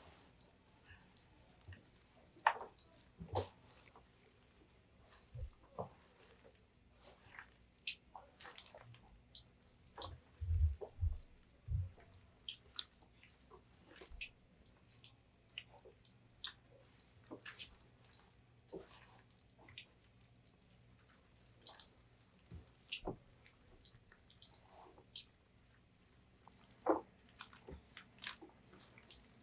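Gloved hands mixing seasoning-coated chili peppers in a plastic tub: scattered, irregular wet squelches and sticky clicks, with a few dull thumps about a third of the way in.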